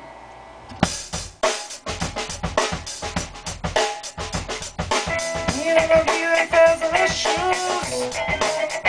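An acoustic drum kit starts up about a second in, with bass drum and snare hits in a steady beat. A guitar joins in with sustained notes about halfway through, and the two play a rock groove together.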